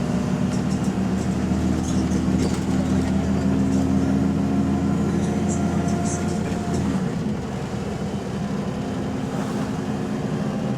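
Double-decker bus engine drone heard from inside the bus, running steadily under load and then falling away about seven seconds in as the engine eases off, with light rattles from the bodywork. The bus is running in limp mode with what the uploader calls a bad turbo.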